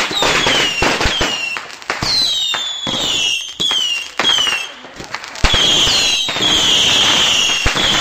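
Consumer fireworks going off: a run of short whistles that fall in pitch, over hissing and crackling with sharp pops. About halfway through, a longer, steadier whistle with a loud hiss takes over.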